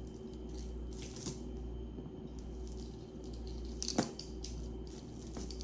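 Costume jewelry being handled: light clicks and rattles of bracelets and chains, a few around one second in and the loudest cluster about four seconds in, over a steady low hum.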